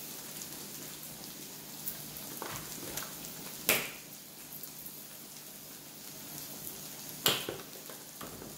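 Vegetables frying in a nonstick wok, a steady soft sizzle, with a few sharp clicks on top, loudest about four seconds in and again near the end.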